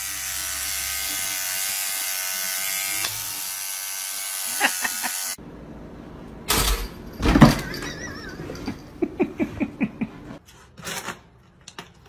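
Electric toothbrush buzzing steadily for about five seconds, then cutting off suddenly. After it come a couple of loud knocks and a run of quick clicks and taps.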